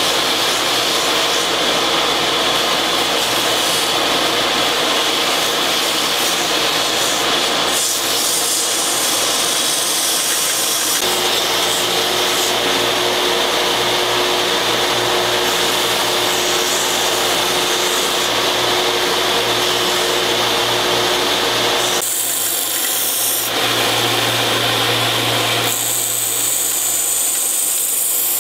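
Central Machinery bench belt sander running, with a steady whine and the rasp of the abrasive belt grinding a wooden knife handle to shape. Its tone and grit change abruptly a few times.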